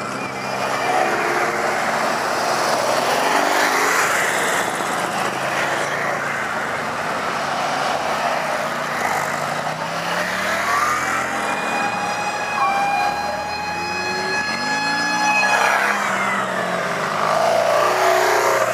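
Engines of motorcycle trikes running and revving as they ride slowly past one after another. From about the middle, a steady siren-like tone rises in, holds for about five seconds, then falls away.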